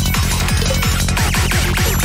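Fast electronic dance music played live on synthesizers and drum machines: a quick, steady kick drum over a pulsing bass line, with synth sounds gliding up and down in the second half.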